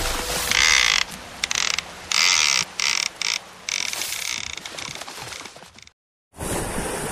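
Fishing reel sound effect: a clicking, whirring spin in on-off bursts about half a second to a second long, fading and cutting out about six seconds in. After a brief silence, wind and water noise starts near the end.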